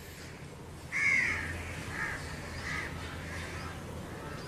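A crow cawing: three harsh caws about a second apart, the first one loudest.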